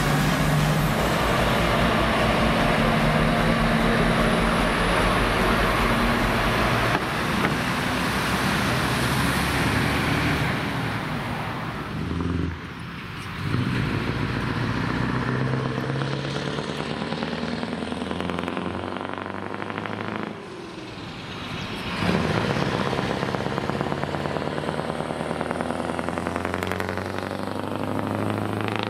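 Several semi-trucks' diesel engines running through open exhaust pipes as they pull away and drive past, one after another. The engine note rises and falls with each truck, and it changes abruptly about a third of the way in and twice more where one pass ends and the next begins.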